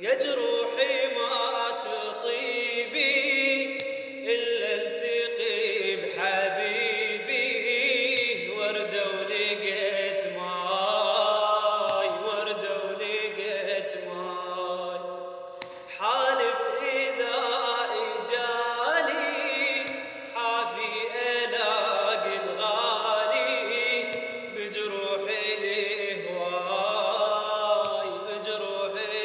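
Music: a male voice singing an Arabic song in long, chant-like melodic phrases, with short breaks between them.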